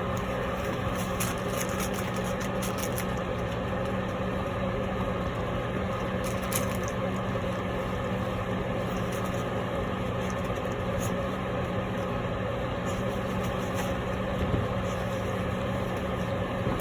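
A steady low machine hum with scattered faint clicks.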